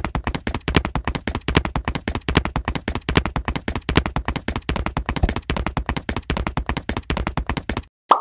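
Edited-in sound effect of rapid, even tapping clicks, about six a second, stopping shortly before the end.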